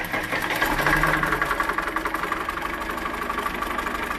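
Stationary sawmill engine running with its belt-driven pulleys turning, loudest in the first second or so before settling into a steady idle.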